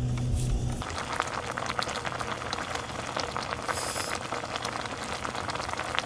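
A low steady hum cuts off about a second in. Then food cooking in a pan gives a dense, crackling sizzle.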